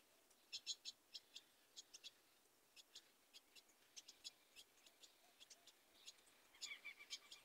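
Faint, short chip notes of a small bird, repeated irregularly a few times a second, with a brief whistled note near the end.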